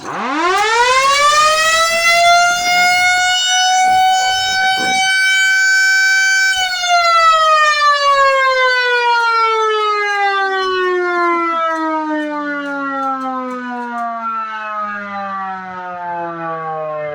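Fire siren winding up fast to a steady high wail, holding it for about six seconds, then sliding slowly and steadily down in pitch for the rest of the time.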